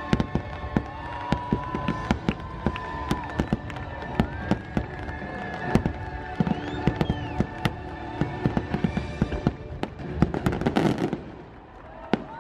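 Fireworks going off in quick succession, many sharp bangs and crackles, over soft held notes of music; the bursts thin out and quieten near the end.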